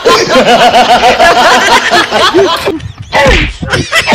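A scuffle between two men: rapid wordless shouts and cries, with slaps and thuds. A heavier thud comes about three seconds in as a body hits the ground.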